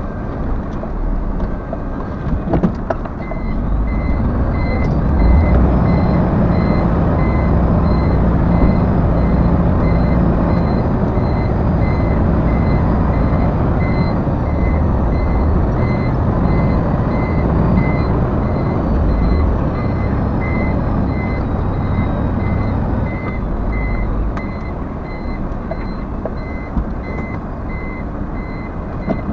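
Truck reversing alarm beeping steadily and evenly, starting about three seconds in, over the low rumble of the truck's diesel engine working as it manoeuvres.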